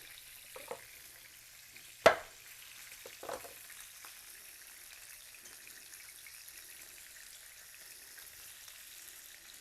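Beef filets searing in avocado oil in a hot pan: a steady sizzle. A single sharp knock about two seconds in, with a couple of fainter handling noises around it.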